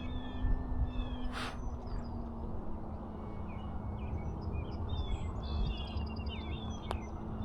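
Small birds chirping again and again in short slurred calls, over the faint steady hum of the RC Cessna's electric motor in flight, which drops a little in pitch about two seconds in, and low wind rumble on the microphone.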